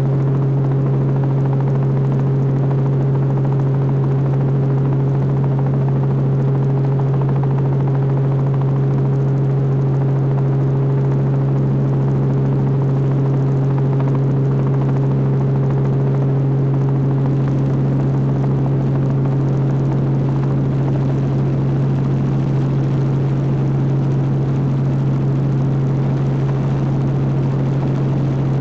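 Robinson R44 helicopter heard from inside the cockpit: the steady drone of its six-cylinder Lycoming piston engine and rotor drive, dominated by a strong, unchanging low hum.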